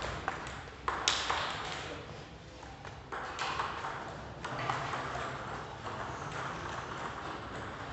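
Table tennis ball striking paddles and the table in a rally: a few sharp clicks in the first second or so, the loudest about a second in, then only the hall's background noise.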